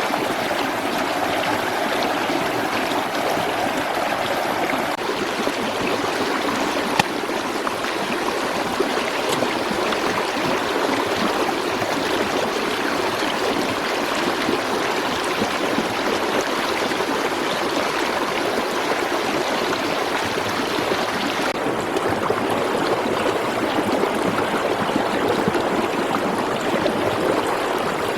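Steady rush of running water, like a flowing stream, with a few small clicks, the sharpest about seven seconds in.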